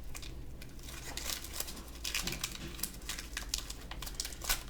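Plastic toy packaging crinkling and rustling in bursts as it is handled, with one sharper click near the end.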